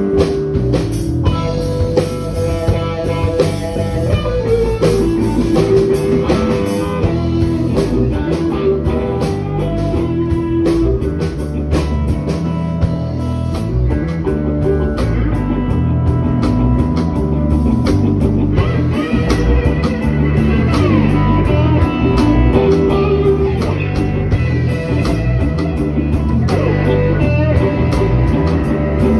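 Live electric blues band playing an instrumental passage: lead electric guitar plays held, bending lines over bass guitar and drum kit. The guitar climbs into higher notes about two-thirds of the way through.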